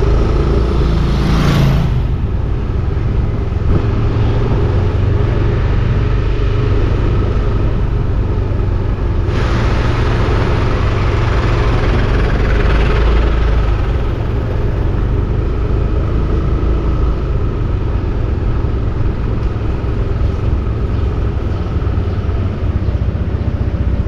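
Steady vehicle engine and road noise with heavy wind rumble on the microphone while moving along a city street. A brief swell in the sound runs from about nine to fourteen seconds in.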